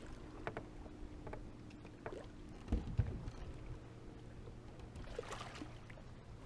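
Knocks and clicks of handling on a fishing boat's deck, with one heavier thump about three seconds in, over a low steady hum.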